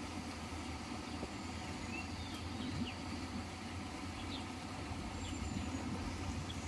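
Open-air campsite ambience: a steady low hum and rumble, with a few faint, short bird chirps scattered through.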